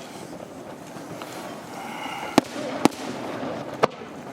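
Fireworks shells bursting in the air: three sharp bangs in the second half, the last two about a second apart.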